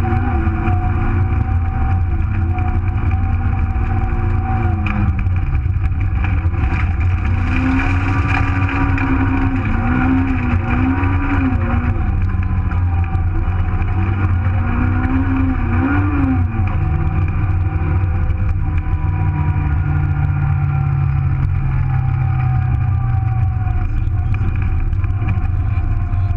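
Super1000 Nissan Micra rally car's engine heard from inside the cabin, its revs rising and falling again and again, then settling to a steadier, lower, slowly falling run about two-thirds of the way in, over constant road and tyre rumble.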